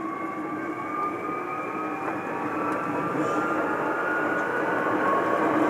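Hankyu Kyoto Line electric commuter train heard from inside the car, pulling away and picking up speed. Its traction motors give a whine that slowly rises in pitch, over a rumble of wheels on rails that grows steadily louder.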